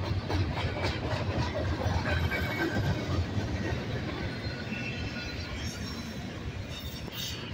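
Double-stack intermodal freight train's well cars rolling past: a steady rumble of steel wheels on rail with clattering knocks and faint high wheel squeals now and then.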